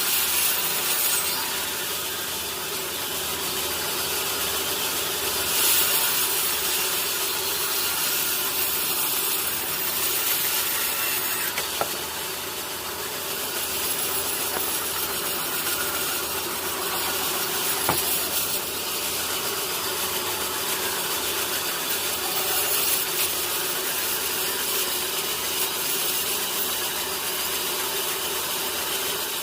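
Sawmill saw cutting lengthwise through a teak log, a steady rasping cut with the machine's hum underneath, broken by a few brief clicks.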